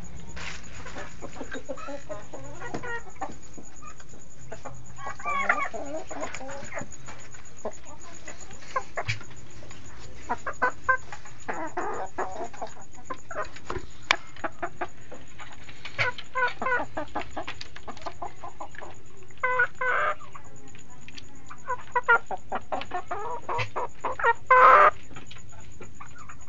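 Domestic turkeys in a pen calling in repeated bouts of quick, stuttering calls, the loudest burst near the end.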